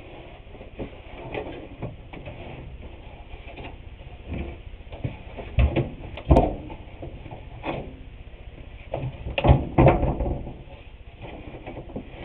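Irregular knocks, bumps and handling noises from objects being moved about, with the heaviest thumps a little past halfway and a cluster about three-quarters of the way through.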